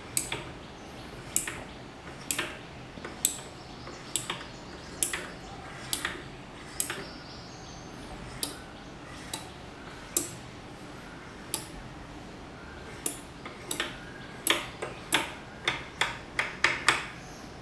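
Small PCB relays on a DMX512-controlled 8-channel relay board clicking as they switch on and off. Each click is a relay pulling in or dropping out as its channel's DMX value crosses the midpoint between 127 and 128. The clicks come singly about a second apart, then in a quick run near the end.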